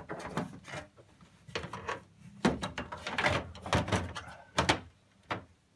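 Irregular knocks and short scrapes of a TV's rear cover plate being laid in place and handled, about nine separate clunks that die away near the end.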